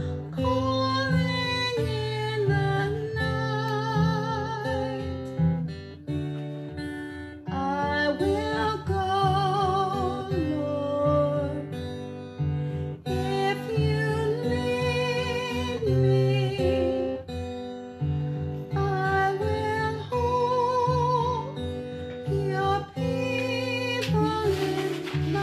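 A song with acoustic guitar and a singing voice, the sung notes wavering with vibrato.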